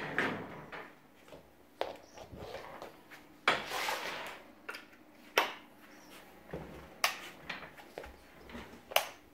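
Footsteps in slide sandals on a hard floor, heard as irregular sharp clicks and knocks, with a longer rustle of handling noise about halfway through.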